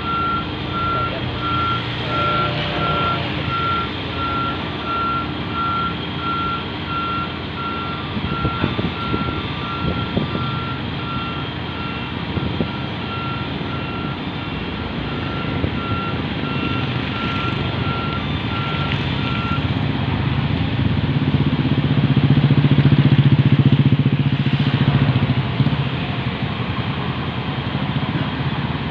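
Heavy construction machinery's warning beeper beeping steadily, about twice a second, and stopping about two-thirds of the way through. Under it a diesel engine runs throughout and grows louder for a few seconds near the end as the load is lifted.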